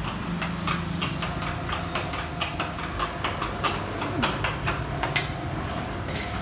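A rapid, irregular run of light clicks and taps from work on an aluminium-framed sliding glass door, over a steady low hum of traffic.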